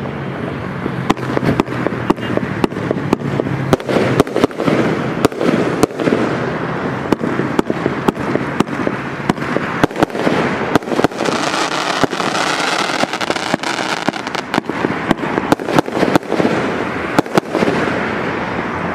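A 25-shot large-bore firework cake firing in sequence: an irregular series of sharp bangs, roughly one to two a second, from shots launching and bursting. Beneath them runs a continuous crackle and hiss from glitter tails and crackling dragon-egg stars, densest in the middle.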